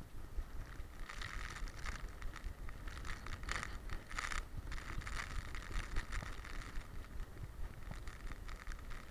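Wind and motion rumbling on the microphone of an action camera worn by a running boxer dog on a wet road, with a rustling, scraping hiss that swells from about a second in and eases off near the end.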